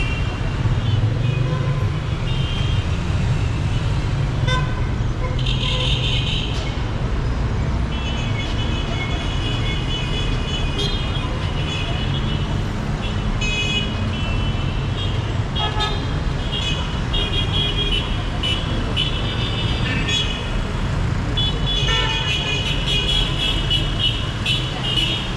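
Dense city traffic: engines running in a steady rumble while vehicle horns honk again and again, some short toots and some longer blasts, with several horns sounding together near the end.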